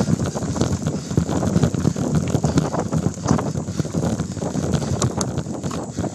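2012 Trek X-Caliber mountain bike rattling and jolting over a dirt singletrack, heard through a handlebar-mounted phone in a waterproof case: a steady jumble of knocks and bumps with wind rushing over the microphone.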